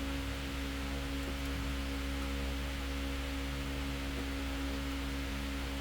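Steady machine hum: a low drone with a clear tone and its overtone above it, unchanging throughout.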